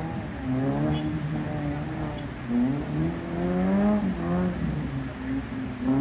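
Maruti Suzuki Gypsy 4x4's engine revving up and down under load while driving through a rocky river, its pitch climbing and dropping back about every one to two seconds.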